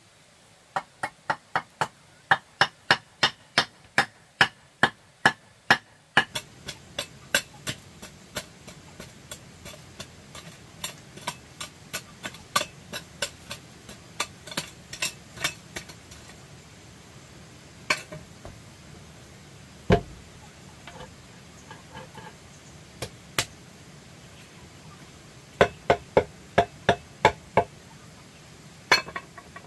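Hard knocks of a flagstone floor being bedded: first a fast run of loud knocks, about three a second. Then lighter blows of a wooden pole tamping the earth around the stones, in short runs, with a last quick run of about eight near the end.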